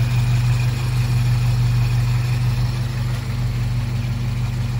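Toyota 20R 2.2-litre four-cylinder engine idling steadily with the hood open.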